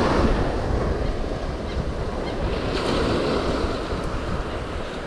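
Small surf waves breaking and washing up the beach, with wind buffeting the microphone.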